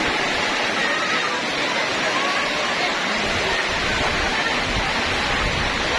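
Heavy rain pouring down in a steady, even hiss, with faint voices beneath it.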